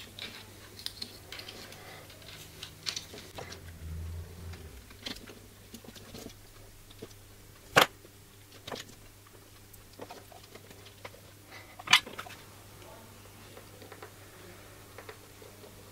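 Quiet handling of small wires and parts on a workbench mat, with scattered soft clicks and rustles and two sharp clicks, about eight and twelve seconds in.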